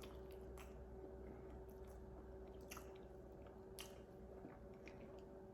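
Faint chewing with small scattered mouth clicks, over a steady low hum.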